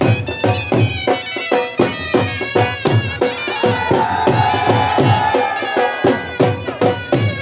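Traditional folk music: a drum beating a fast, steady rhythm under a droning wind instrument, which holds one long high note for a couple of seconds around the middle.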